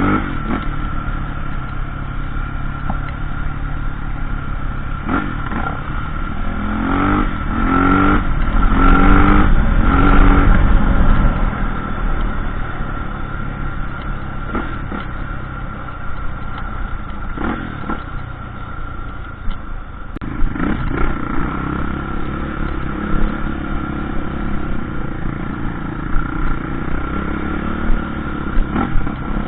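Off-road motorcycle engine running on a trail ride, the revs climbing loudest about 7 to 11 seconds in, then settling, with rattling clatter throughout.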